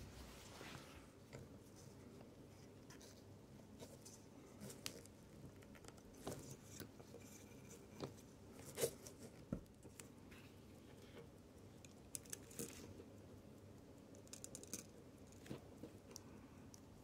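Quiet handling of a steel wristwatch case in a bench case press: scattered small clicks and taps of metal and tools, the sharpest click about halfway through.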